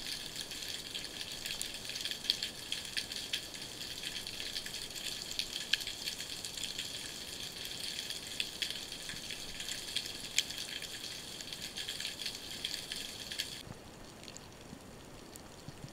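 Underwater ambient noise picked up by a camera below the surface: a steady high hiss thick with small, fast, irregular clicks and crackles. About 14 s in it drops to a quieter, duller hiss.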